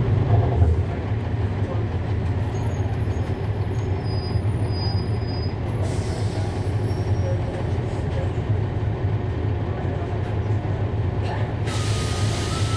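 Cummins ISL9 inline-six diesel of a 2011 NABI 40-SFW transit bus running steadily, heard from inside the passenger cabin with a deep steady hum. Near the end a higher steady whine and more hiss come in.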